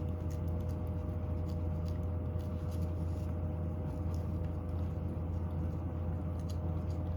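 Steady low mechanical hum of a household appliance with two faint steady tones above it, with faint scattered clicks of a cat licking a lickable treat.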